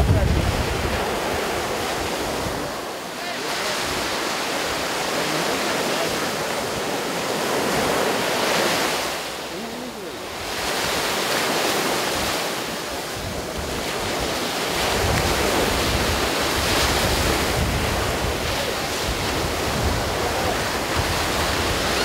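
Choppy open sea washing and breaking in a steady rush that swells and eases every few seconds, with wind buffeting the microphone, strongest right at the start.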